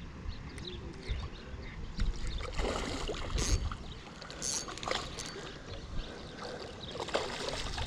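Steady rush of spillway water, with wind buffeting the microphone and a few faint knocks.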